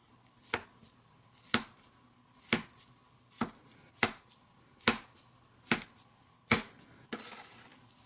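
A blade cutting down through a packed mass of glow-in-the-dark Orbeez water beads. There are eight crisp cracking cuts about a second apart, then a softer, longer rustle near the end.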